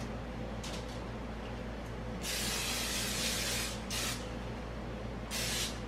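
Aerosol can of PAM cooking spray hissing onto aluminium foil: one long spray of about a second and a half, then two short spurts.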